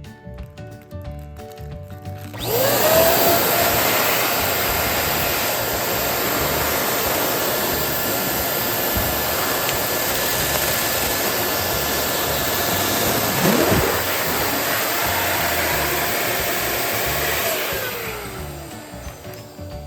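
Electric balloon pump running while inflating a balloon: it spins up with a rising whine about two and a half seconds in, runs steadily with a rushing air noise, and winds down with a falling whine near the end.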